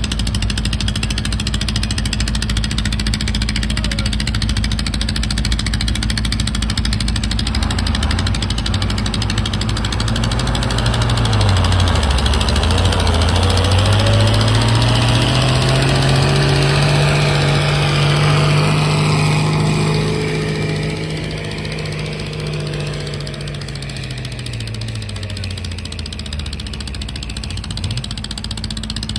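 Competition garden tractor's engine running under load while pulling a weight-transfer sled over a muddy track. Its revs dip about twelve seconds in, climb and hold high for several seconds, then fall away near the end, over a steady engine drone.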